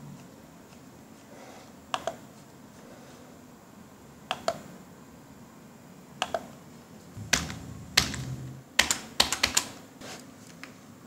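Clicks of a computer keyboard and mouse: pairs of clicks a couple of seconds apart, then a quicker run of key taps near the end.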